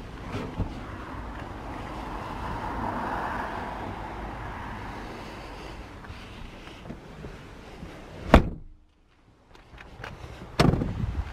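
Steady background noise and handling rustle inside a car, with one loud, sharp thump about eight seconds in.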